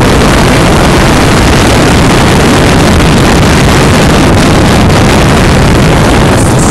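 Motorboat running across open water, its engine a low drone under a loud, even rush of wind buffeting the phone's microphone.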